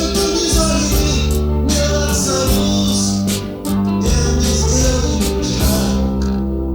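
Studio rock band recording: drum kit, electric bass and guitars playing a steady groove, with held bass notes under regular drum hits.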